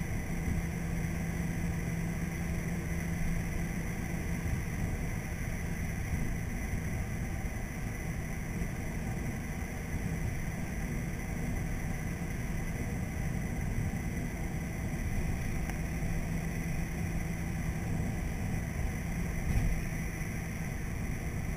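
Car interior noise while driving: a steady engine drone under tyre and road rumble, heard inside the cabin. A single brief knock near the end.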